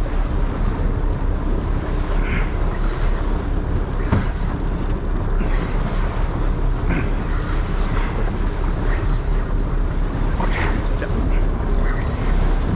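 Wind buffeting the microphone over the wash of choppy sea around a boat: a steady, unbroken rush with a strong low rumble.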